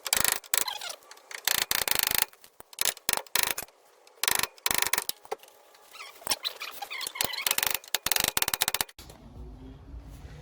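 Quick metal-on-metal hammer taps through a 1/2-inch socket extension onto a steering knuckle, driving the knuckle up onto the strut, in several rapid bursts with short pauses between.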